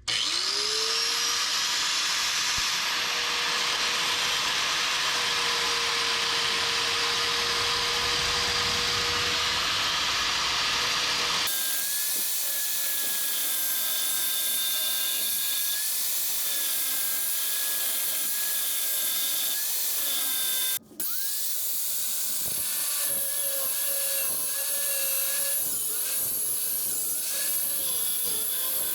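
A power tool spins up at the start and runs steadily while cutting through a steel transmission crossmember. Its pitch wavers under load in the later part, and it breaks off briefly once about two-thirds of the way through.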